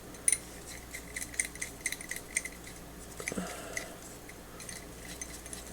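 Light, irregular metallic clicks and taps of the small steel parts of a vintage adjustable wrench being handled and worked apart, the sharpest about a quarter second in.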